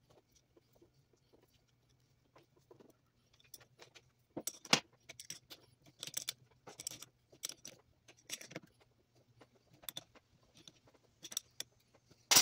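Metal wrenches and hand tools clinking and clattering in irregular sharp knocks, sparse at first and busier and louder from about four seconds in, over a faint steady low hum.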